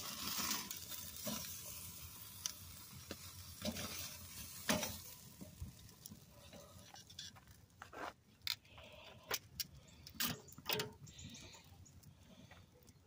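Steaks sizzling on the grate of a charcoal kettle grill over flaring coals, a steady hiss that is strongest in the first half. Metal tongs click sharply against the grate several times, most often in the second half.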